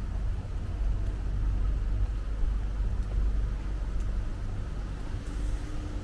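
Strong wind buffeting the microphone: a deep, uneven rumble that rises and falls with the gusts.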